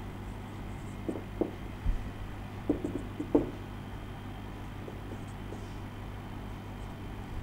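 Marker pen tapping against a whiteboard while dots and short dashes are drawn: about six short knocks between one and three and a half seconds in, over a steady low room hum.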